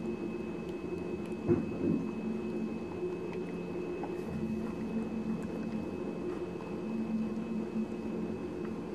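Pet rabbit chewing blueberries: faint wet, squishy chewing and small clicks from its mouth and the dish, over a steady low hum, with one soft thump about a second and a half in.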